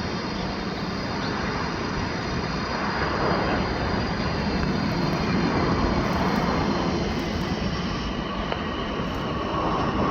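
Jet airliner engines running, a steady rushing roar that swells through the middle, eases, and builds again near the end, with a faint high whine on top.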